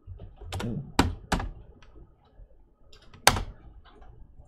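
A few sharp clicks of a computer keyboard and mouse being worked, spaced irregularly, the loudest about three seconds in.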